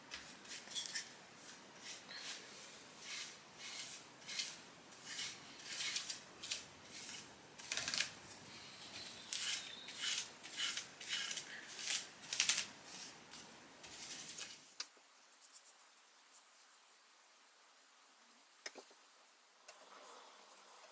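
Bristle paintbrush swishing as it brushes varnish onto a wooden chair rail, a short hissing stroke about once or twice a second. The strokes stop about fourteen seconds in, and then only a few faint brush strokes follow.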